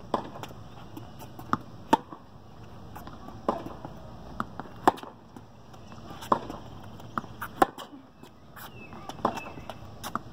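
Tennis balls struck by rackets and bouncing on a hard court during a baseline rally. Sharp pops come about every one and a half seconds, with fainter clicks between them.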